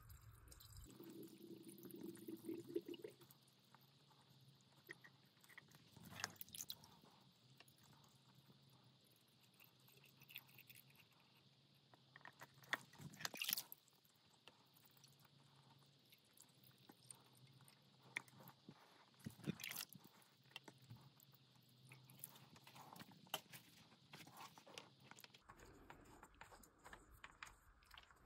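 Faint trickling and gurgling of water poured from a plastic jug into the priming port of a Metabo surface pump, filling the pump casing before start-up. A few sharp knocks come now and then.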